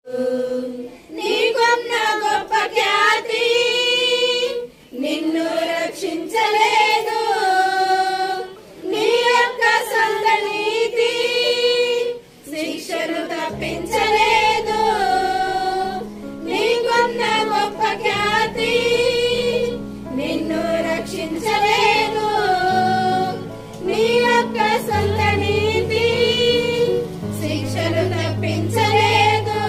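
A group of women singing a Christian hymn together, phrase by phrase with short pauses for breath. About 13 seconds in, a low held accompaniment note joins under the voices and changes pitch every few seconds.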